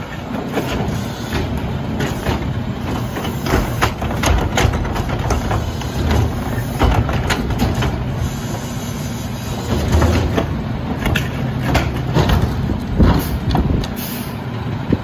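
Rear-loader garbage truck's engine running steadily while a hydraulic cart tipper lifts and dumps a wheeled trash cart into the hopper, with irregular clanks and knocks of the plastic cart and falling rubbish and a louder knock near the end.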